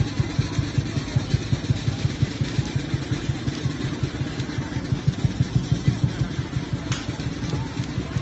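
An engine idling with a steady low chug, about six or seven pulses a second.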